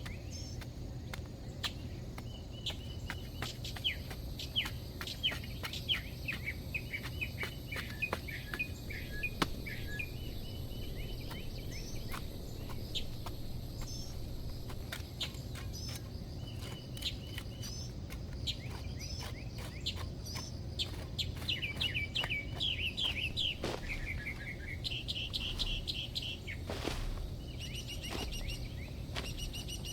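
Small songbirds chirping and twittering in repeated quick trills, over frequent sharp clicks and knocks and a steady low rumble.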